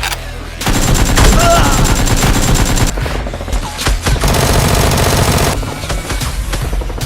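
Rapid machine-gun-style gunfire in two long bursts, the second starting about four seconds in, over background music with a steady low beat.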